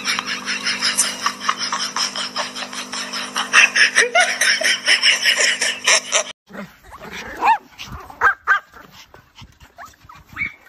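A fast, evenly spaced clicking beat over a steady hum, cutting off abruptly about six seconds in; then small dogs, Pomeranians, yipping and barking in short high calls.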